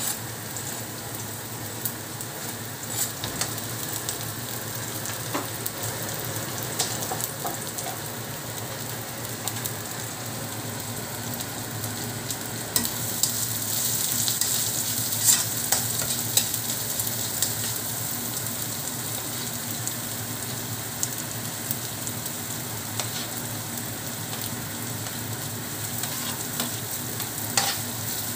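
Chopped garlic and red onion sizzling in hot oil in a pan as they are sautéed, with a spoon stirring them and now and then clicking against the pan. The sizzle grows a little louder about halfway through.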